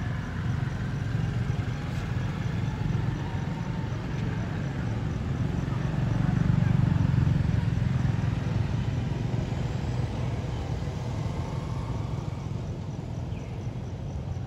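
A steady low rumble that swells slightly around the middle, with a faint, regular high chirping above it.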